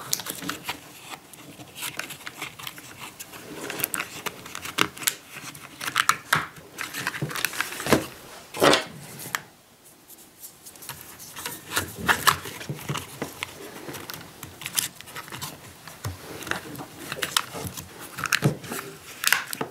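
Hands handling a radio-controlled truck and rummaging for its parts: a run of light clicks, taps and rustles, with a short lull about halfway through.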